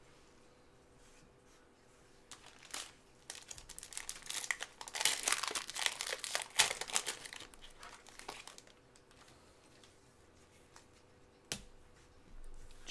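Foil wrapper of a trading-card pack being torn open and peeled off the cards by gloved hands, crinkling for several seconds, loudest in the middle, then a single click near the end.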